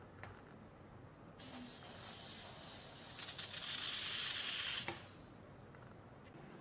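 Butane gas hissing as a canister's nozzle is pressed into a kitchen torch's refill valve to fill it. The high hiss starts about a second and a half in, grows louder, and cuts off suddenly with a click as the can is lifted off, about five seconds in.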